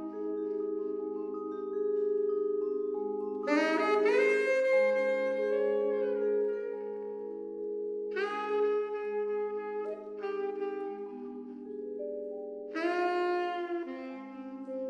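Vibraphone and saxophone duo playing a slow ballad: the vibraphone sustains soft chords underneath while the saxophone plays three long held melody notes.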